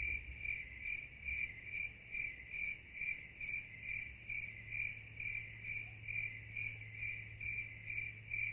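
Cricket chirping in an even rhythm, about two and a half chirps a second, over a faint steady low hum.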